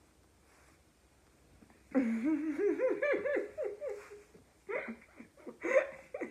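A woman laughing hard: a loud run of rising and falling "ha-ha" peals starting about two seconds in, then a few shorter bursts of laughter near the end.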